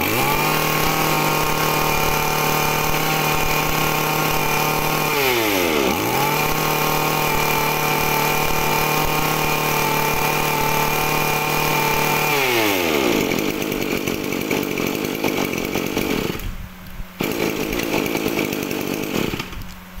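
HiKOKI (Hitachi) CG23 23 cc two-stroke brush cutter engine running at high throttle, a crisp engine note. It dips and picks straight back up about five seconds in, then drops back to a lower speed about twelve seconds in.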